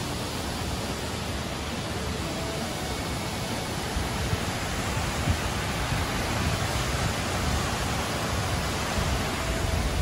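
Mountain stream rushing over rock pools and a small waterfall: a steady hiss of flowing water, growing a little louder about halfway through.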